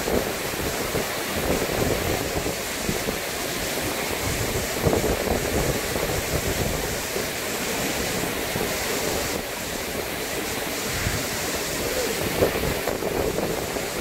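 A tall waterfall pouring into its plunge pool: a steady rush of falling water and spray, with wind buffeting the microphone.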